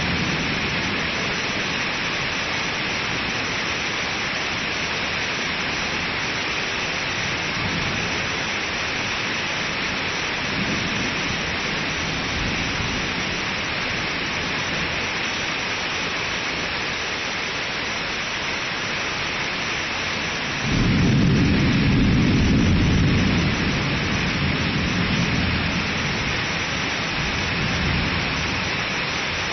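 Thunder: a deep rumble breaks in suddenly about two-thirds of the way through, strongest for about three seconds, then rolls on in weaker swells, over a steady hiss.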